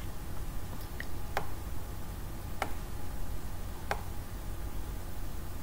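Three sharp computer mouse clicks about a second and a quarter apart, over a low steady hum.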